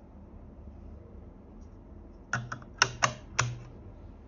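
A quick run of about five sharp plastic clicks and snaps as a Tellur WiFi wall socket's plastic cover frame is pressed into place over the socket.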